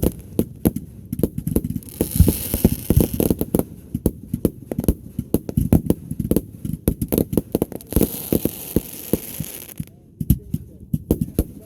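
Fireworks going off: a fast, irregular run of pops and bangs, with two stretches of hissing crackle about two seconds in and again near eight seconds.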